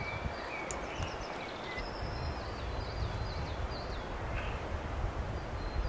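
Wild songbirds singing: many short high chirps and quick downward-sweeping notes, over a steady low rush of wind and rustling.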